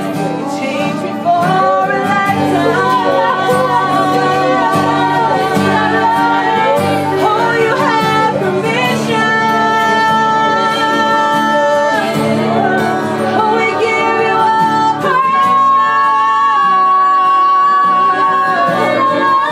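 Live worship music: a voice singing over instrumental accompaniment, the melody wavering and then settling into long held notes.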